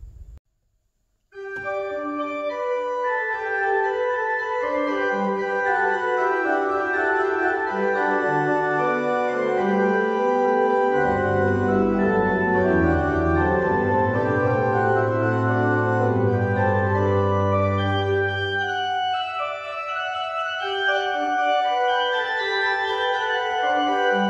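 Church pipe organ playing sustained chords, starting about a second in after a brief silence. Deep pedal bass notes come in about halfway through and drop out a few seconds later.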